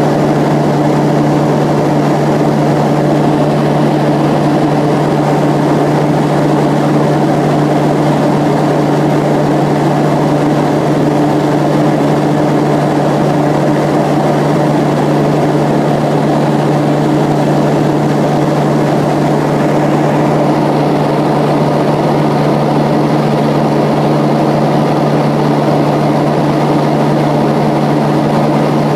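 Propeller airplane's engines and propellers running at a constant setting, heard inside the cabin: a loud, steady low hum of unchanging pitch over a wash of rushing air.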